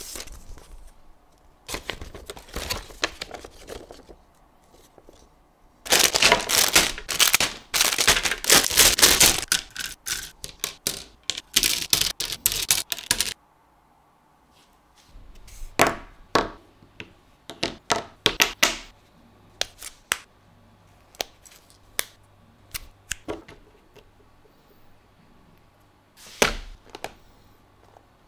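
Plastic packaging crinkling and rustling for several seconds as model-kit parts are unbagged, followed by scattered sharp clicks and taps of plastic runners and small pieces being handled and set down on a cutting mat.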